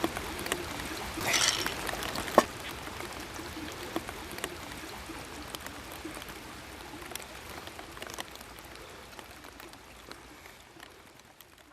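Wood campfire crackling, with scattered sharp pops over a steady hiss and one loud pop a little over two seconds in, fading out near the end.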